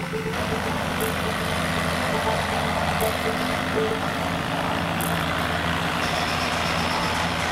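A large performance robot's machinery running steadily: a dense mechanical noise over a low hum.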